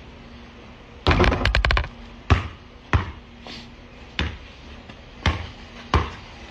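A basketball bouncing on a hard court: a quick clatter of rapid hits about a second in, then single bounces roughly once a second.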